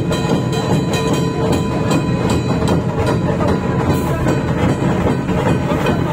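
Dhol tasha pathak playing: a large ensemble of barrel-shaped dhol drums with tasha drums beating a dense, continuous rhythm without a break.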